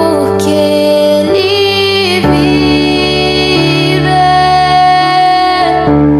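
Slow, soft worship music with sustained chords that change twice, about every two to four seconds, and a long held melody note in the middle of the stretch.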